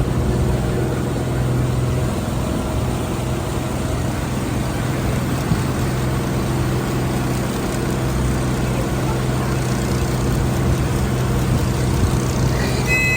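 Boat engine running steadily with a low hum, heard on board. A brief high-pitched tone sounds near the end.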